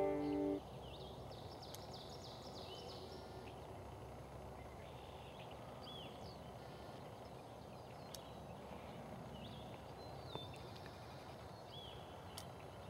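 Faint field ambience with small birds chirping now and then, plus a couple of light clicks; banjo music cuts off about half a second in.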